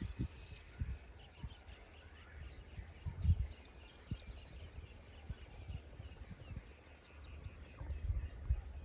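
Quiet open-field ambience: irregular low rumbles of wind buffeting the microphone, with many faint, short bird chirps above.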